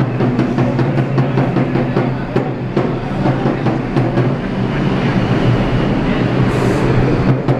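Marching drum beaten with sticks in a steady beat, over the rumble of a subway train in the station.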